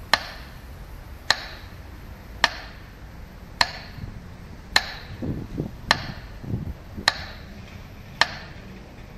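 Metronome ticking slowly and evenly, about one sharp click a second, eight times: the beat that marks a minute of silence. A brief low rumble comes between the fifth and seventh clicks.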